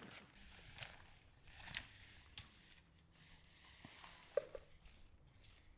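Scattered small clicks and soft rustling from objects being handled, with three sharper clicks, the loudest about four and a half seconds in.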